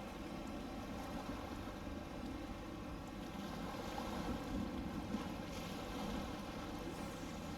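Steady engine drone of a boat running, with several faint steady tones over a rushing wash of water and wind noise.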